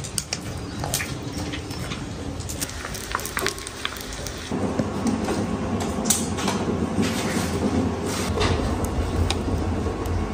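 Chopsticks clicking against a steel bowl as batter is beaten. About halfway through this gives way to a steady low rumble with scattered crackles from a wood fire burning in a brick stove's firebox.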